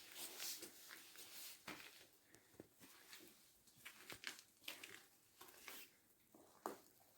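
Faint, irregular crunching and scuffing of footsteps, thinning out toward the end.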